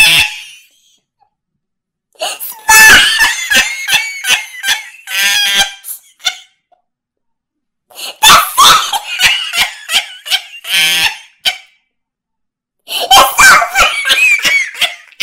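A man laughing hard in three long bouts, separated by short silences.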